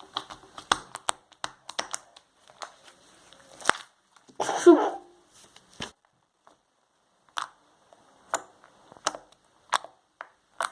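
Slime being squeezed and poked by hand, giving a scattered series of sharp clicks and pops, with one longer squelch about four and a half seconds in.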